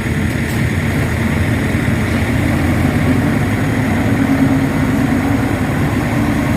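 Radio-controlled model excavator or tow truck machinery running with a steady, engine-like mechanical drone, slightly stronger from about two and a half seconds in to five seconds in.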